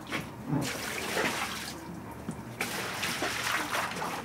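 A rushing, water-like noise that swells and eases a couple of times.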